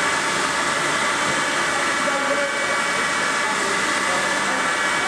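Soraluce SLP 8000 CNC bed milling machine running under power: a steady whirring hum with several steady whining tones over it.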